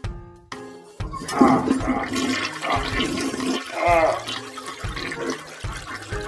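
Toilet flushing: water rushing, with a wavering gurgle about four seconds in.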